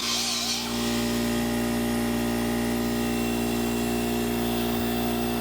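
Electric air compressor running steadily with an even, unchanging hum.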